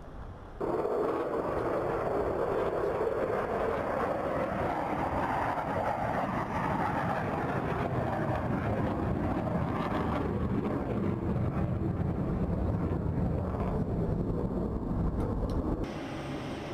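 F-16 fighter jet engine noise, a loud steady rush that swells and eases off again between about four and seven seconds in. It starts suddenly just under a second in and drops off abruptly near the end.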